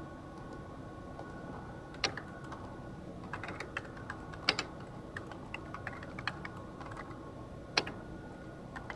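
Typing on a computer keyboard as a terminal command is entered: a run of short key clicks beginning about two seconds in, with three single strokes louder than the rest.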